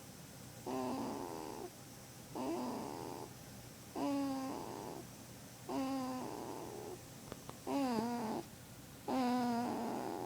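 A sleeping baby snoring in a steady rhythm: six pitched snores, each just under a second long, one about every second and a half.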